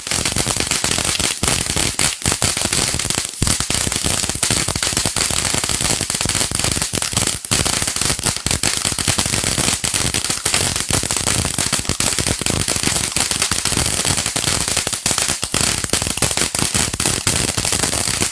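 Ganavel Fireworks 'Olympic Torch', a handheld firework torch, burning and spraying sparks with a steady, dense crackling hiss.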